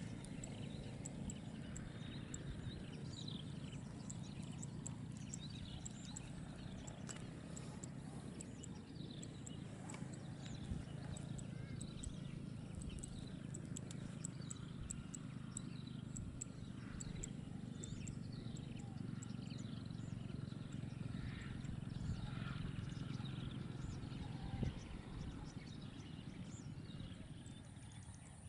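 Lesser whistling ducks giving scattered short, thin whistled calls, over a steady low rumble.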